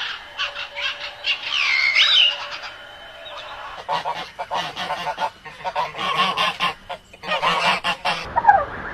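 A small bird chirps for the first few seconds, then a flock of greylag geese honks repeatedly and loudly.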